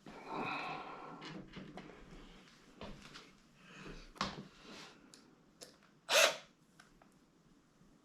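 Plastic parts of a Bissell ProHeat carpet cleaner being handled and fitted back together: light knocks, clicks and rubbing, with one short louder scrape about six seconds in.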